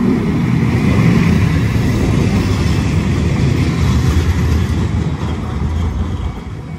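Hiroden 5000-series Green Mover low-floor articulated tram passing close by on ballasted track: a loud, steady rumble of wheels on rail that fades near the end as it moves away.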